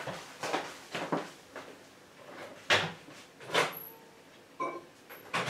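Kitchen handling sounds as milk is got ready to heat: a string of knocks and clicks of cupboard doors and utensils, the loudest about two and a half and three and a half seconds in, and a short electronic beep near the end.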